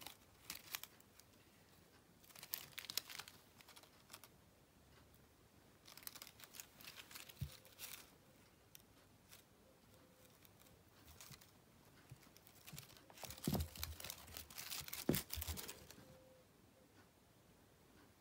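Metallic foil crinkle-ball cat toy crinkling in several short bouts as a kitten bats and grabs it, with a few soft knocks. The longest and loudest bout of crinkling comes in the last few seconds.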